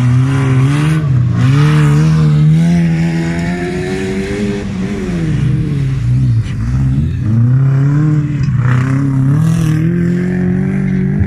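Wreck-race car engines revving hard on a dirt track, the pitch climbing and falling as the throttle is worked, dipping about six seconds in and then climbing again.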